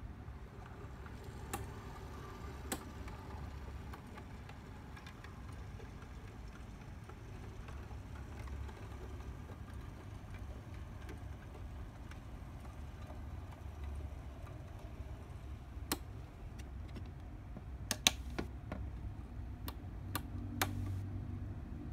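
Brass HO-scale Union Pacific 4-8-4 FEF-3 model locomotive and tender running slowly, with a low motor hum and scattered sharp clicks of the wheels crossing rail joints. The clicks come in a quick cluster near the end as the tender's axles pass over.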